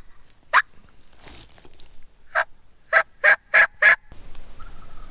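A series of short, sharp turkey yelps, about eight notes, coming faster and louder toward the end.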